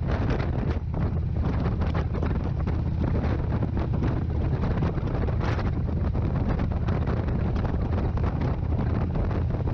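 Wind buffeting the microphone on a moving Harley-Davidson touring motorcycle, over the steady low rumble of its V-twin engine at cruising speed.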